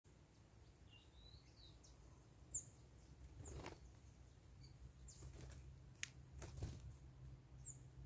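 Faint, scattered high chirps of small songbirds at a garden feeder, with a few brief clicks or wing flutters in the second half.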